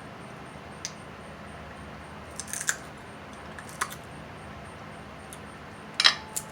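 Short clicks and crunchy cracks of someone eating a snow crab meal: about five separate snaps, the loudest near the end, over a steady background hiss.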